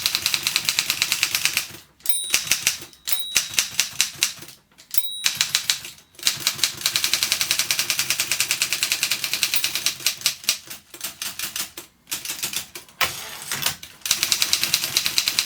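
Continental manual typewriter's carriage advancing in long runs of rapid, even clicks, with short pauses between the runs. The line-end bell rings briefly about three times in the first five seconds, the warning that the carriage is nearing the right margin stop.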